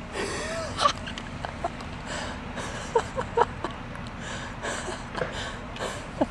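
Short bursts of stifled, breathy laughter, several times, over the steady low hum of an idling city bus.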